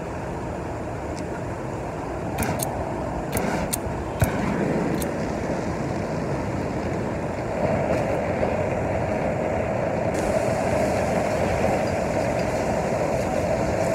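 Electric blower and propane burner of a homemade foundry furnace running with a steady rushing noise. A few sharp clicks come about two to four seconds in, a lighter or igniter being struck, and from about halfway the noise grows louder as the burner lights and the furnace fires.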